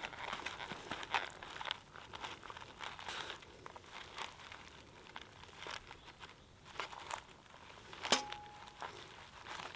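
Crinkling and rustling of camp food packaging and cookware being handled, with scattered small clicks. About eight seconds in comes one sharp clink that rings briefly.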